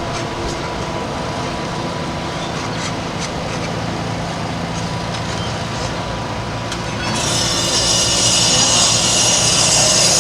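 Heavy work-site machinery running steadily at a light-rail track repair, with faint scattered ticks. About seven seconds in, a loud steady hiss sets in over it.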